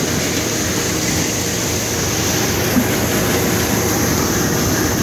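Tractor engine running steadily nearby, a constant mechanical drone.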